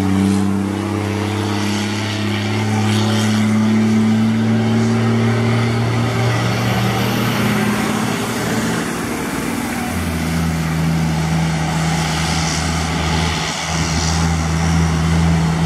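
Ford Cargo heavy truck's diesel engine running steadily as the truck passes on a wet road and pulls away, with tyre hiss from the wet surface. The engine note changes to a lower steady pitch about ten seconds in.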